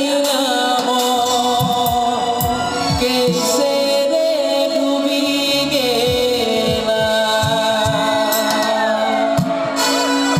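Live band music played loud through a stage PA: a male singer sings a melody into a handheld microphone over bass guitar and low, evenly recurring drum beats.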